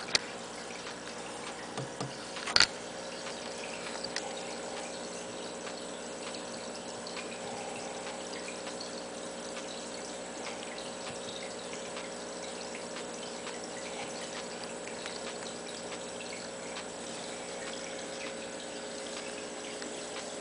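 Steady hum with faint trickling water from the aquarium, and a sharp click about two and a half seconds in.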